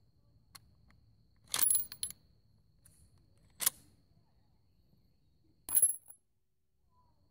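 Metallic clicks and clacks from a Ruger Mini-14's action and Tapco magazine being worked by hand, as the rifle is checked for not cycling fully. There are three separate bouts: a short cluster of clacks, a single sharp click, then another cluster about two seconds later.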